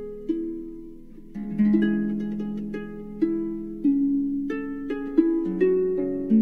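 Slow instrumental background music: a gentle melody of single notes, each struck sharply and left to ring and fade, over held lower notes.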